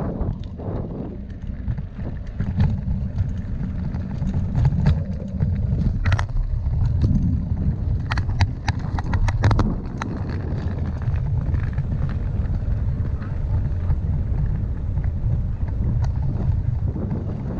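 Bicycle rolling over brick paving and cobblestones: a steady low rumble of tyres and wind buffeting the microphone, with a run of sharp rattles from the bike over the stones midway.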